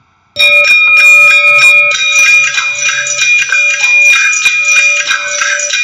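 Intro music that starts suddenly about a third of a second in: a steady high note held throughout, layered with quick percussive taps.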